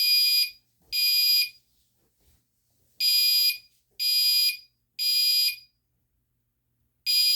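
Fire alarm sounding after the pull station is pulled, in half-second blasts grouped in threes with a longer pause between groups. This is the temporal-three evacuation pattern.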